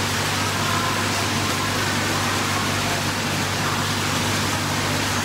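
Steady rushing noise with a low, steady hum underneath: the background of an indoor swimming pool hall, its water and air-handling running.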